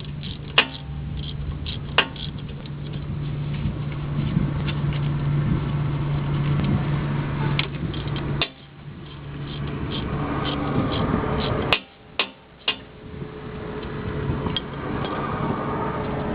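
Hand tools working on the CV axle flange bolts: several sharp metallic clinks and clicks over a steady low hum and background noise. The hum cuts off abruptly about halfway through.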